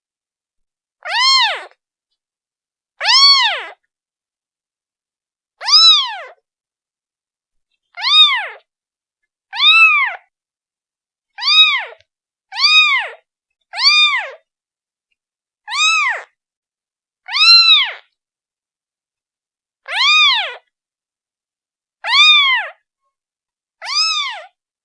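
A newborn kitten, one day old, meowing over and over, calling for its mother: about thirteen short, high-pitched meows, each rising then falling in pitch, one to two and a half seconds apart.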